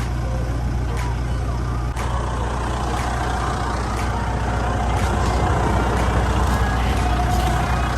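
A moving road vehicle, heard from inside: steady engine hum and road noise, with a faint tick about once a second.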